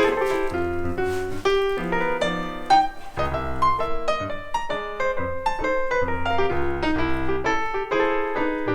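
Background music: piano playing a quick, busy run of notes with a low bass line underneath.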